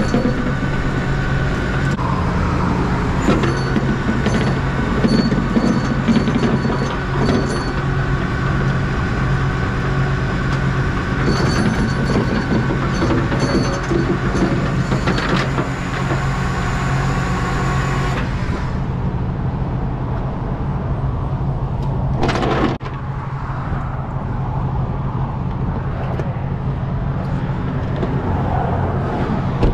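Flatbed tow truck's engine running steadily, with metallic clicks and rattles of chain and bed hardware over the first half or so. A short burst of noise comes about two-thirds of the way through, after which the engine hum goes on a little quieter.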